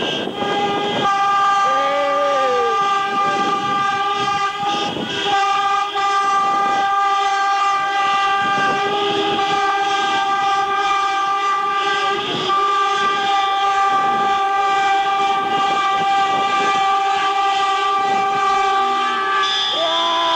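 Car horns sounding together in one long, unbroken chord of steady tones, a celebration cavalcade of honking, with scattered knocks and a few short shouts over it.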